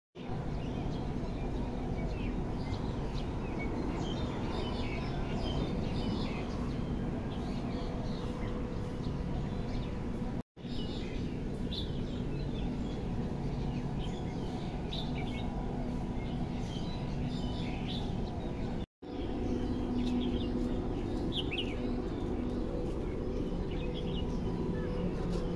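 Small birds chirping in short, scattered calls over a steady low background hum. The sound drops out for an instant twice, at about ten and nineteen seconds in.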